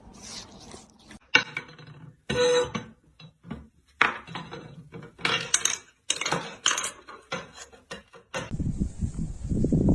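A string of short knocks and clinks, like small hard objects clattering. Near the end it gives way to a steady low rustling noise.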